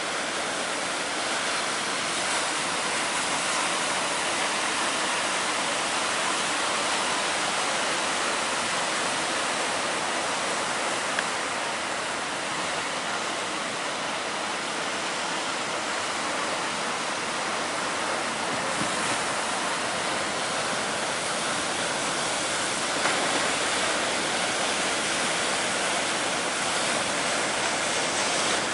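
Ocean surf breaking steadily, a continuous wash of wave noise.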